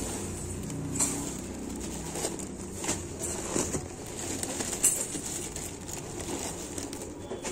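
Clear plastic packet of dried chickpeas crinkling and rustling as it is handled and tipped in the hands, the grains shifting inside, with a few sharper crinkles standing out.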